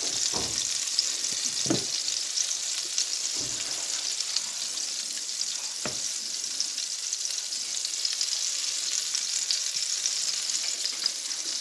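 Quarkkeulchen, patties of potato and quark, sizzling steadily as they fry in fat in a pan, with a few soft knocks in the first six seconds.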